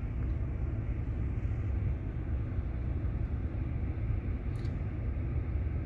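Steady low rumble of a vehicle engine running, with no change in pace.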